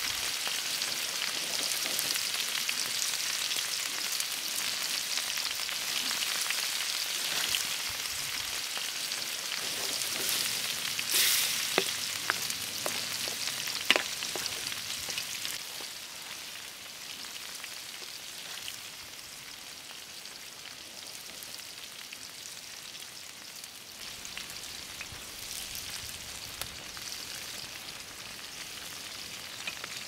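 Diced food frying in a large pan over an open wood fire, a steady sizzle that grows quieter about halfway through. A few sharp clicks come near the middle.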